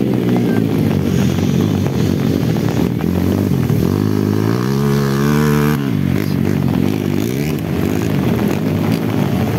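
Dirt bike engines running hard through mud. About four seconds in, one bike revs up and its pitch climbs, then drops away a little before six seconds.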